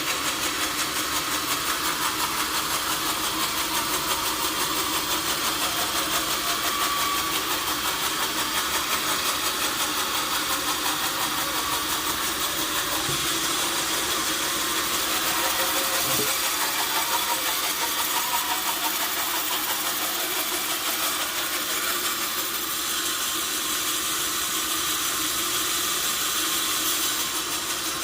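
Sawmill machinery running steadily: an even, continuous mechanical noise, strongest in the high range, with a fast fine pulse.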